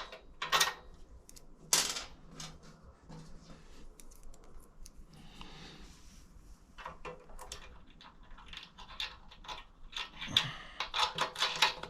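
Small metal clicks and clinks of hand tools and an M8 bolt being handled and fitted, with a quick run of clicks near the end as the bolts are tightened.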